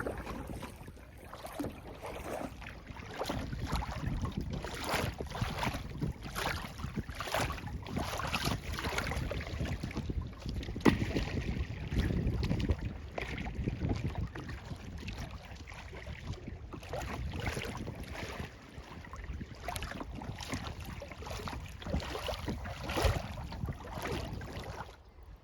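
Kayak paddle strokes splashing and dripping in the water, about one stroke a second, with wind rumbling on the microphone.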